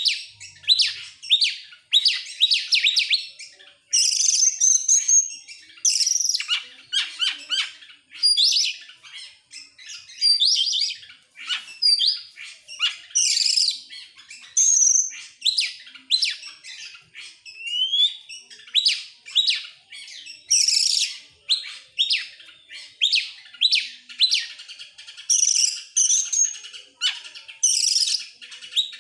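Oriental magpie-robin (kacer) singing in rapid, continuous bursts: short sharp whistles and chattering notes with quick upward and downward sweeps, phrase after phrase with only brief gaps.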